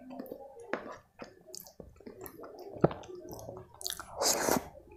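Close-miked eating sounds of soft khichdi and kadhi eaten by hand: wet squishing of fingers mixing the rice, with chewing and lip smacks. Near the end there is a loud slurp, about half a second long, as a handful goes into the mouth.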